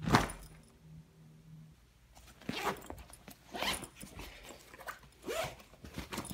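Zipper on a fabric backpack being pulled in a series of short quick strokes, starting about two seconds in. A single sharp knock right at the start is the loudest sound.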